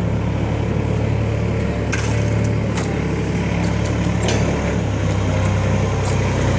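Forklift engine idling steadily, with a few sharp light knocks in the middle.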